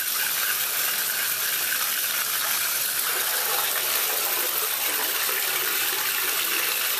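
Bath tap running steadily into a bathtub, an even rushing hiss of water.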